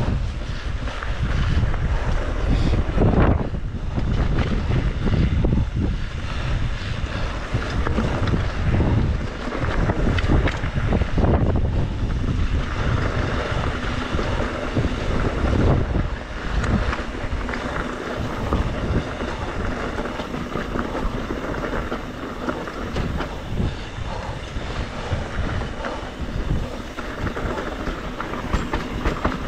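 Wind buffeting an action camera's microphone as a mountain bike rides fast down rough singletrack, over a continuous rumble with scattered knocks and rattles from the bike on the trail.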